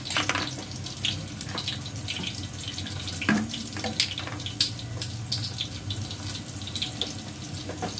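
Onion frying in hot oil in a metal pot on a gas burner: a steady sizzle with irregular pops and crackles.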